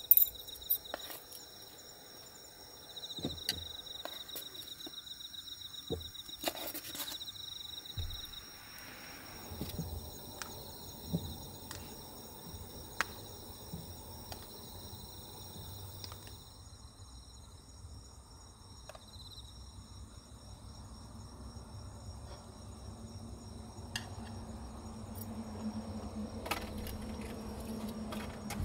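Insects, likely crickets, trilling steadily, with a pulsing trill strongest between about three and eight seconds in. A few light knocks of objects set down on a wooden table.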